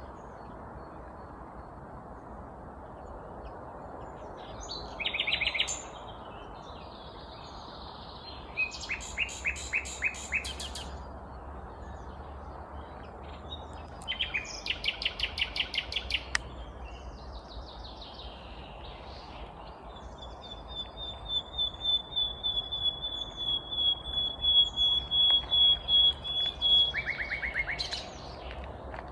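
Nightingale singing in separate phrases: fast rattling, clicking runs, then near the end a long series of repeated high whistles that grows louder and closes with a short rattle. A steady low background noise runs underneath.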